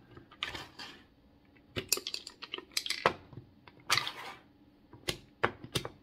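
A wooden puzzle box being handled on a wooden table: irregular sharp wooden clicks and knocks from its sliding bars and panels, with a couple of short scraping slides.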